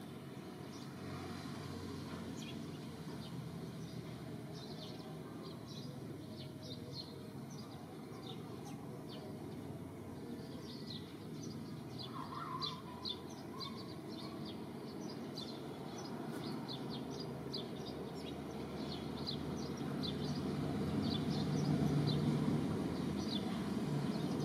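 Outdoor ambience of small birds chirping in short, quick notes again and again, over a steady low rumble that grows louder near the end.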